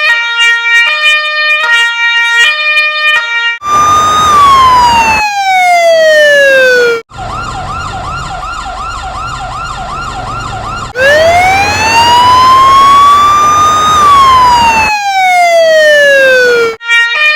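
Cartoon fire engine siren sound effect cycling through its modes: a two-tone hi-lo for the first three and a half seconds, then a wail that falls in pitch. A quieter, fast warbling yelp follows for about four seconds, then a slow wail rising and falling again, and the two-tone hi-lo returns near the end.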